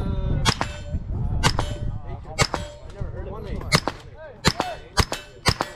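Suppressed MP5-pattern carbine fired in a slow string of about seven single shots, coming quicker near the end. Steel targets ring with a brief tone after the hits.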